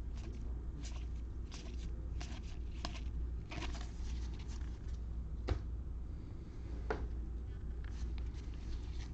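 Baseball trading cards being handled and flipped through one after another: a string of short scrapes and ticks, with two sharper clicks about halfway through, over a steady low hum.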